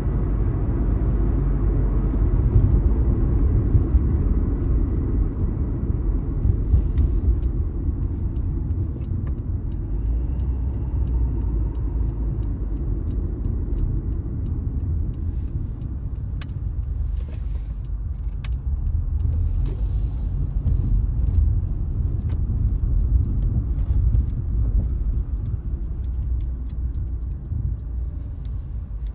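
Car's engine and tyre noise heard from inside the cabin while driving slowly, a steady low rumble. Faint sharp ticks come in from about a quarter of the way in.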